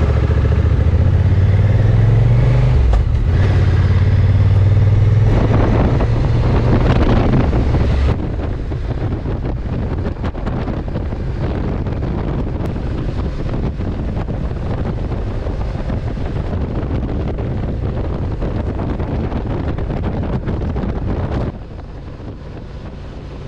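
Honda NT1100 motorcycle being ridden: its parallel-twin engine running steadily under wind and road noise. The engine is strongest for the first several seconds, then wind and road noise take over, and the sound drops suddenly near the end.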